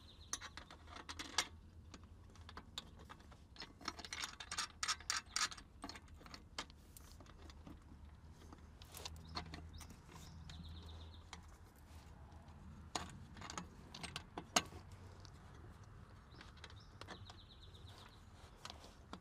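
Light metallic clicks and clinks of a truck air brake chamber and its steel clamp ring being handled and seated by hand. There is a quick run of small clicks about four to six seconds in, and two sharper knocks around thirteen and fifteen seconds.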